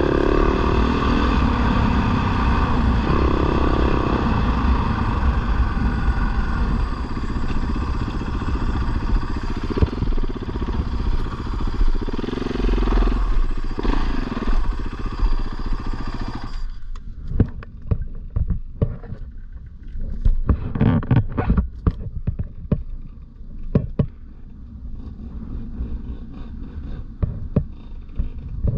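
Dirt bike engine running at low speed on rough stony ground, briefly revving near the start and again around three to four seconds in, then switched off abruptly a little past halfway. After it stops, irregular crunches and clicks follow, like footsteps on loose stones.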